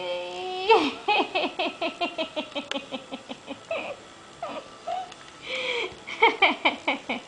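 Laughter: a rising vocal note, then a quick run of short ha-ha pulses falling in pitch for about three seconds, and a second run of laughter near the end.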